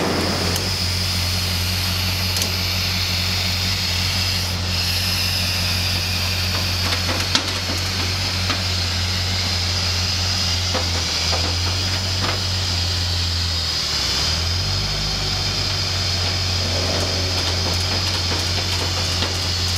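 Car engine idling steadily under a constant high hiss, its hum shifting briefly about two-thirds of the way through.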